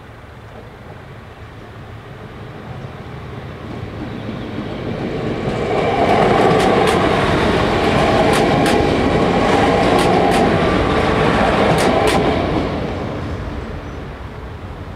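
A two-carriage regional train passing over a level crossing. It grows louder over a few seconds, runs past with a string of sharp wheel clicks over the rail joints, then fades away.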